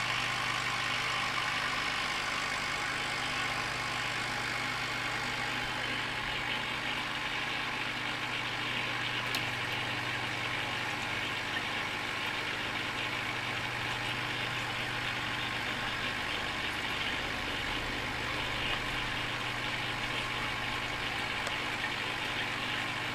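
Aquarium air pump humming steadily, with a constant hiss over the hum.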